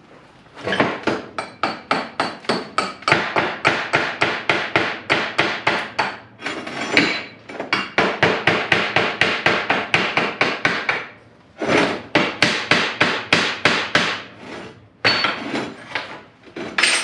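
A hammer striking steel in quick, even runs of blows, about four or five a second, with short breaks near the middle and toward the end.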